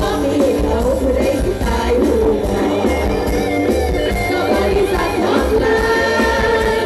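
Loud live band music from an Isan mor lam troupe's stage show, with a pulsing bass beat and a woman singing into a microphone.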